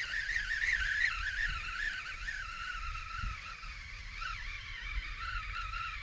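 Baitcasting reel being cranked to retrieve a lure, its gears giving a whirring whine that wavers in pitch with the turns of the handle and settles a little lower after about two seconds.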